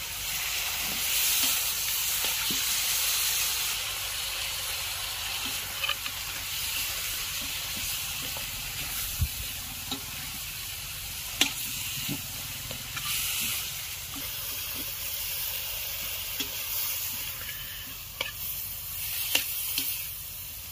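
Marinated chicken lollipops deep-frying in hot oil: a steady sizzle, with a few sharp taps scattered through.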